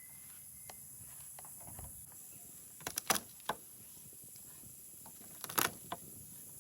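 A few sharp knocks in two quick clusters, about three seconds in and again near the end, over a steady high hiss.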